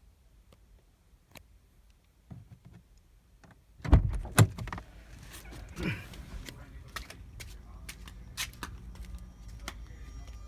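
Mazda Miata NB engine bay: a few faint clicks, then a sudden loud start about four seconds in, settling into a steady low running sound with irregular sharp ticks. This is the strange engine-bay sound the owner is asking about.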